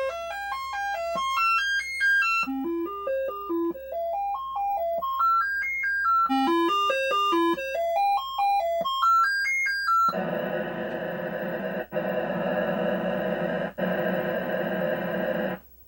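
ARMSID replacement sound chip in a Commodore 64C playing the diagnostic cartridge's sound test: stepped synth notes run up and down the scale three times, then from about ten seconds a steady buzzing chord sounds, dropping out twice for an instant before it stops. The voices come through strong, the sign that the new SID has restored the computer's missing sound.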